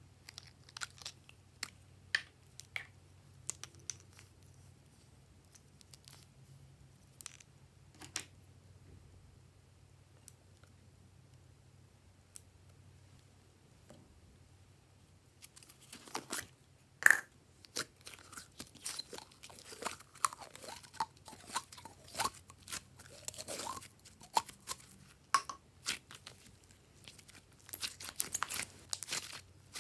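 Glossy slime being worked by hand, giving sticky clicks and pops: a few scattered ones at first, then a dense run of crackling and popping through the second half, with the sharpest pop about 17 seconds in.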